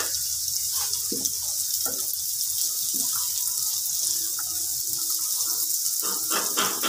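Chana dal and white dal with dried red chillies sizzling steadily in hot oil in a nonstick frying pan, with a few soft stirring sounds as the dal is moved around.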